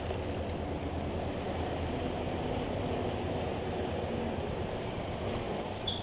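Steady low rushing noise of wind on the microphone. A brief high squeak comes right at the end.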